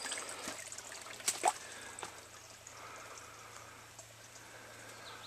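A few footsteps crunching on dry leaf litter in the first second and a half, then a faint steady trickle of a small creek.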